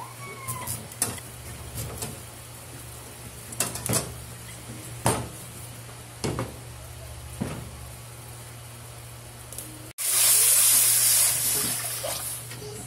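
A large kitchen knife chopping into a whole pumpkin on a wooden cutting board, a sharp knock every second or so. About ten seconds in, water is poured into a steel wok: a loud hiss that fades over about three seconds.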